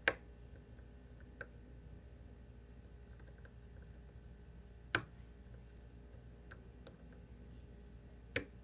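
Scattered sharp metallic clicks of a lock pick and tension wrench working the pins of a Scorpion CX5 pin-tumbler-and-slider lock, with faint small ticks between; the loudest click comes about halfway through.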